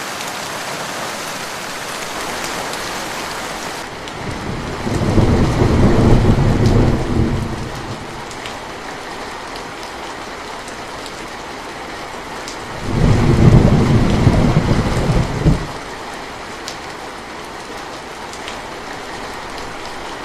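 Steady rain with two low rolls of thunder, each lasting about three seconds: one about five seconds in and one about thirteen seconds in. The rain's high hiss drops away about four seconds in.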